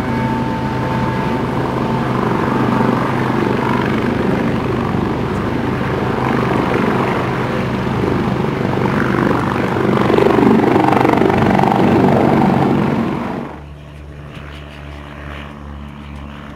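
Piper Warrior's single-engine piston engine and propeller droning steadily, heard from inside the cabin. About 13 seconds in it drops abruptly to a quieter, lower hum.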